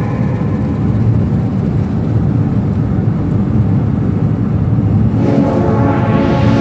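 Steady low rumble of road and engine noise inside a moving car's cabin at highway speed. Music comes back in about five seconds in.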